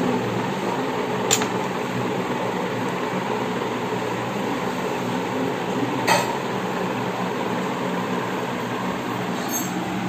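Glass serving dishes clinking against a tray twice, a sharp click at about a second in and another at about six seconds, over a steady background hum.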